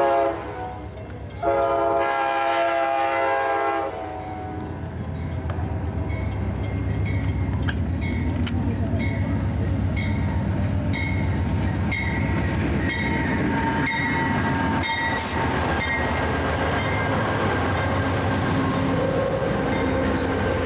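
Amtrak diesel locomotive horn sounding a short blast, then a long one about two seconds later, followed by the passenger train rumbling into the station and its cars rolling past. A steady dinging repeats about twice a second while the train approaches.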